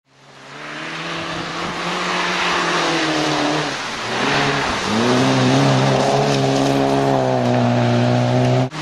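Rally car engine running hard at high revs, fading in at first; the pitch drops and climbs again around four seconds in, then holds steady and loud before cutting off suddenly near the end.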